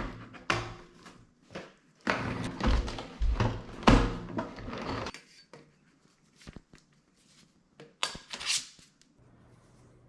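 Handling noises from assembling a Vacmaster 5-gallon wet/dry shop vacuum: plastic parts knocking, clattering and clicking together in irregular bursts, busiest from about two to five seconds in, with a few sharp clicks near the end.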